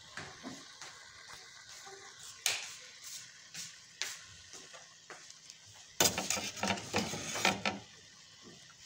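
A steel spoon scraping and knocking against a metal pan while stirring a paste that sizzles in oil. There is a few single knocks, then a run of quick, loud scraping strokes about six seconds in.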